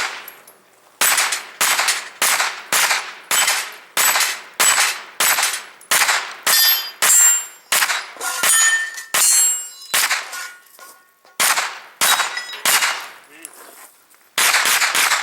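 Pistol-caliber carbine firing a long, rapid string of about two dozen shots, roughly two a second, with a few short pauses. Several hits are followed by the high ringing of steel targets.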